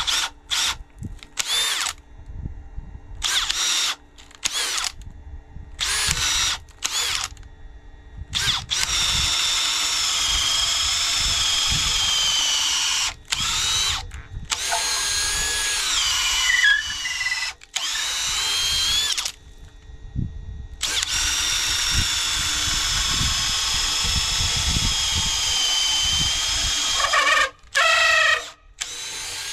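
Power drill boring into timber. It runs in several short bursts, then in long runs of several seconds, its whine sagging and picking up again as the bit loads, and ends in a few quick stuttering bursts.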